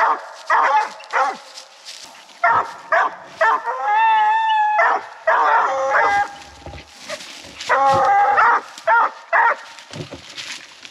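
Coonhounds barking treed at the base of a tree: short chop barks at about two a second, broken by a long drawn-out bawl about four seconds in and another about eight seconds in. This is tree barking, the hounds' signal that they have located game up the tree.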